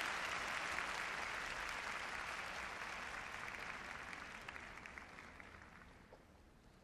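Arena audience applauding, a dense patter of many hands that gradually dies away.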